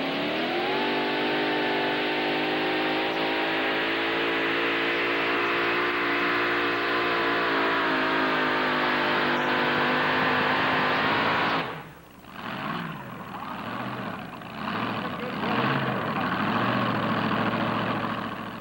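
Open-class pulling tractor's engine running at high revs under full load, its pitch climbing in the first second and then holding high with a slight sag. About 12 seconds in the throttle is cut and the sound drops suddenly, with lower, uneven revving that fades near the end.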